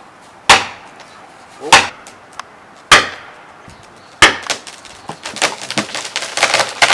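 Axe chopping wood: four sharp blows about a second and a quarter apart, followed by a denser crackling clatter that rises toward the end.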